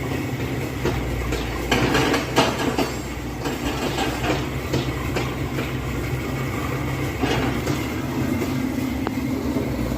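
Komatsu 130 excavator's diesel engine running steadily, with irregular heavy metallic knocks and clanks from the machine at work, the loudest cluster about two seconds in.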